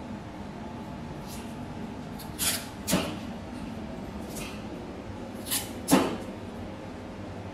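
Paper pattern and adhesive tape handled by hand as the tape is pressed down over a closed dart: a few short rustles and taps, the sharpest about six seconds in.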